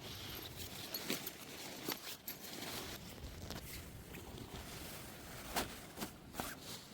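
Rustling with scattered small clicks and knocks as camping gear is handled and packed while a tent is taken down.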